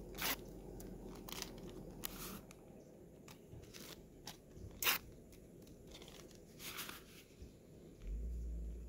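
A packet of instant coffee being handled, torn open and poured, crinkling in a few short sharp crackles over a faint steady low rush, with a low rumble near the end.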